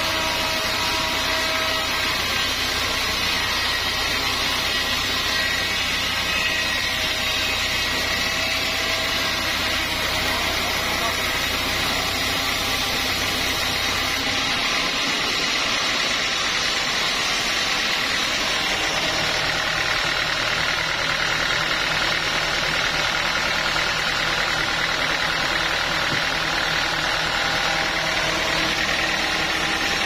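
Band sawmill machinery running steadily with a constant mechanical drone and hum. About halfway through the lowest hum drops away and a different set of steady tones takes over.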